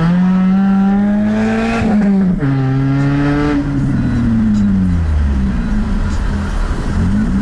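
Lada Priora's four-cylinder engine running with the muffler removed, a loud open exhaust. It pulls through a gear, drops in pitch at an upshift about two and a half seconds in, climbs briefly, then falls away as the driver lifts off, and starts to rise again near the end.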